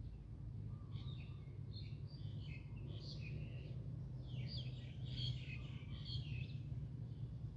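Songbirds chirping and twittering in quick runs of short calls from about a second in until near the end, over a steady low background rumble.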